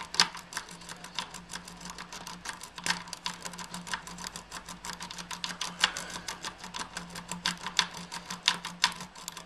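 A steel lock-picking rake scrubbed rapidly in and out of a pin tumbler lock under light tension, the pins clicking and rattling against it in a quick, irregular run of sharp clicks.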